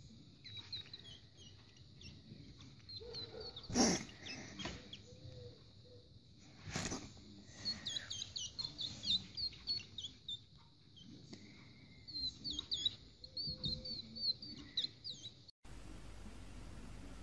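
Newborn hedgehogs squeaking: many short, high-pitched chirping peeps in quick runs, with two sharp knocks about three seconds apart. The squeaking cuts off suddenly near the end.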